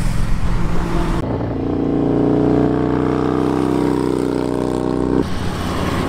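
Motorcycle engine running as it rides through a bend, its pitch slowly rising as it accelerates. The tone changes abruptly about a second in and again near the end.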